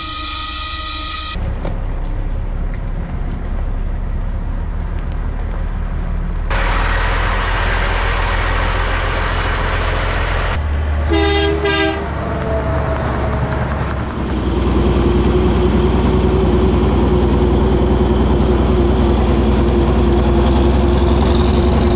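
Caterpillar 977 crawler loader's diesel engine running, with a brief double toot about 11 seconds in. From about 14 seconds on the engine is louder and steady.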